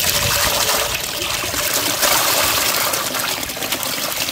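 Muddy water carrying eels and small fish pouring from the mouth of a large clay pot into a metal basin that already holds water: a steady splashing gush.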